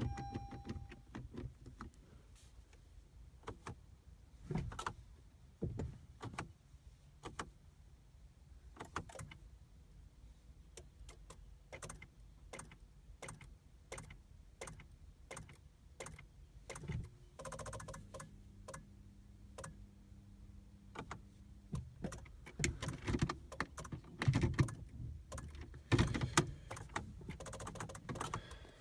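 Scattered clicks and knocks around a car that won't start reliably, with a steady hum for about four seconds partway through.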